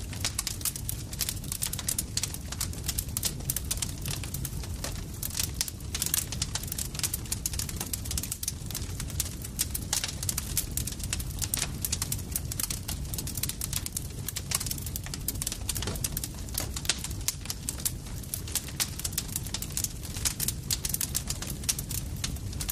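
Campfire burning, a steady low rumble of flames under dense, irregular crackling and popping of burning wood.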